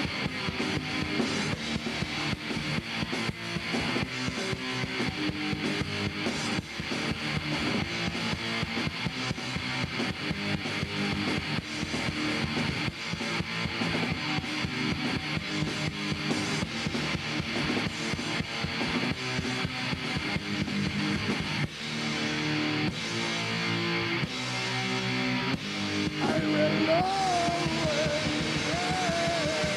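Rock band playing with electric guitars and drums, a dense, continuous wall of chords over a steady beat. In the last few seconds a high, wavering tone slides up and down over the music.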